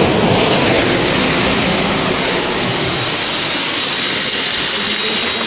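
Steady rushing noise with no clear pitch or rhythm.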